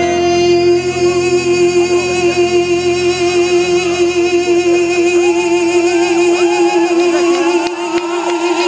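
A male lead singer holds one long note with vibrato, the band dropped out beneath it. Audience whoops and cheers rise over it in the last few seconds.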